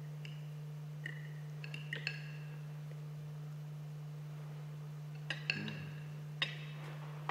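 Cutlery and a wine glass clinking lightly on china plates at a dining table: scattered short clinks, each with a brief ring, a few in the first two seconds, then a lull, then more from about five seconds in. A steady low hum runs underneath.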